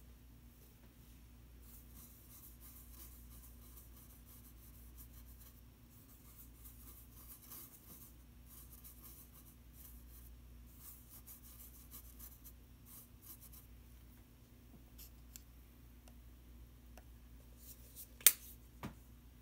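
Paintbrush strokes brushing and scratching lightly across the painting surface in quick, uneven runs. Near the end comes a sharp tap, the loudest sound, followed about half a second later by a softer knock.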